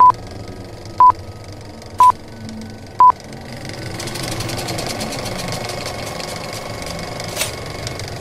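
Short high beeps, one a second like a countdown, four of them and the loudest sounds here, then, from about four seconds in, a film projector starting up and running with a steady, fast clatter.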